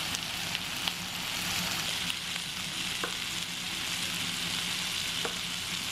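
Marinated galbi sizzling on a hot black plate over a tabletop burner: a steady hiss with an occasional small pop.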